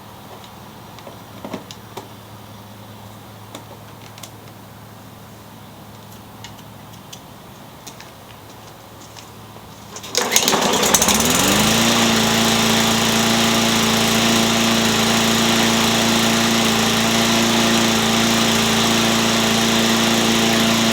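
Hyper Tough push mower's small Briggs & Stratton overhead-valve engine started about halfway through: it catches at once, speeds up over about a second, then runs steadily at an even, high speed. Before the start, only a few light clicks and knocks.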